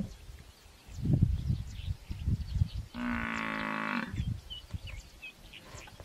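African buffalo giving one steady, low bellow of about a second near the middle, the distress call of a buffalo pulled down and being eaten by hyenas. Two shorter low grunting sounds come before it.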